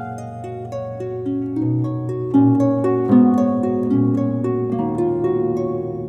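Background instrumental music: a flowing line of plucked-string notes over low held bass notes.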